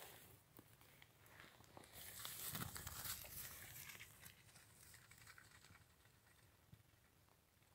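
Faint rustling and crunching of footsteps through dry moorland grass and heather, with a few light clicks of handling noise. It is loudest a couple of seconds in and fades toward the end.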